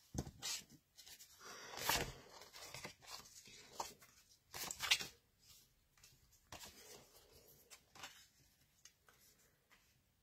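Sheets of patterned paper and card stock being shuffled, picked up and laid down by hand: irregular short rustles and light taps, with a few louder crinkles in the first half.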